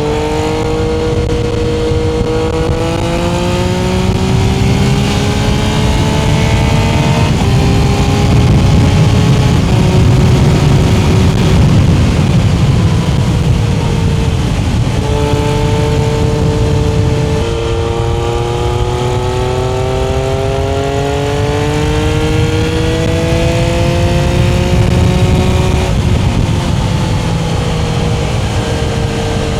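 Triumph engine running under load, its pitch climbing steadily and then dropping back suddenly several times, as at gear changes, over a heavy low rumble.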